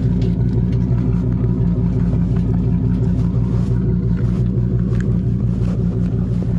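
Ford Excursion's engine running steadily with an even low rumble. A faint click comes about five seconds in.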